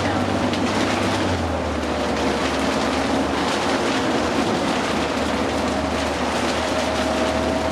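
Interior of a New Flyer D60LFR articulated diesel bus under way: steady engine drone and road noise with a faint transmission whine. The engine note drops about a second and a half in, as with an automatic gear change.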